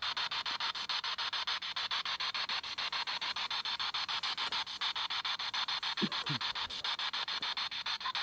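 Handheld spirit box sweeping through radio stations and playing through a small external speaker: a steady hiss chopped into rapid pulses, about ten a second. About six seconds in, two short sounds fall in pitch.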